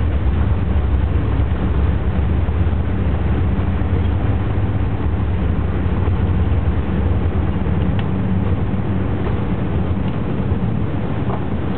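Cabin noise inside an Airbus A380 during its takeoff roll: a steady, loud, deep rumble from the engines at takeoff power and the airframe rolling fast down the runway.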